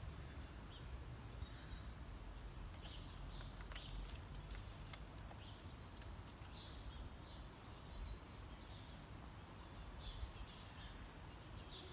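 Faint chirps of small birds: short high calls repeating every second or so over a low steady rumble. A few light clicks come about four to five seconds in.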